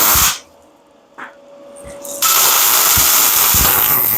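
Electric welding arc on the steel frame, laying down two beads: a loud crackling hiss cuts off just after the start, then strikes again about two seconds in and runs for about two seconds.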